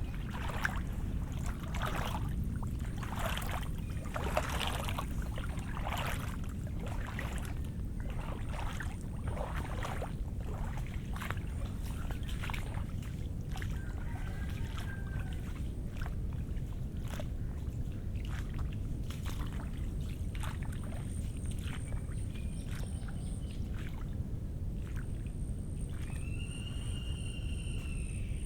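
Footsteps on wet, muddy ground after rain, about two steps a second, thinning out after about ten seconds, over a steady low rumble.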